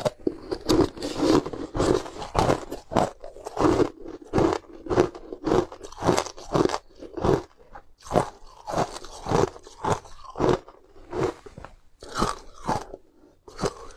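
Chunks of ice being bitten and chewed, close to the microphone: a steady run of crisp crunches, about two a second.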